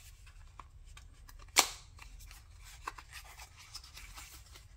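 A multi-tool's retail box being opened by hand: faint rubbing and handling of the packaging, with one sharp click about a second and a half in and a couple of lighter ticks later.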